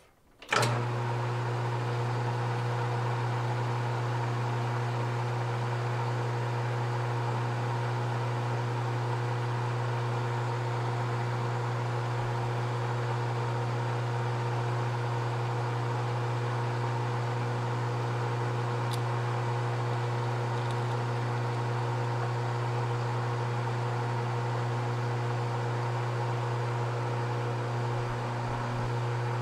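Small bench metal lathe switched on with a click, then running steadily with a low hum and several steady whining tones as a delrin plastic piece is parted off. It shuts down right at the end.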